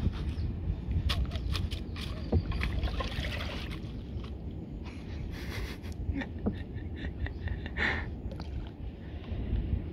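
Steady low wind rumble on the microphone aboard a small open wooden canoe, with scattered light clicks and knocks.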